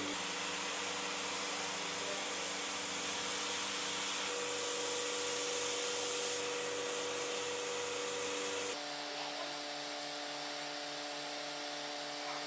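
Leister SeamTek industrial welding machine running with a steady airy hiss and a motor hum. The hum shifts in pitch a few seconds in, and the sound drops slightly in level about three-quarters of the way through.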